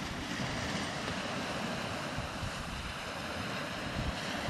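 Small waves breaking on a sandy beach, a steady wash of surf, with wind buffeting the microphone in a low, fluttering rumble.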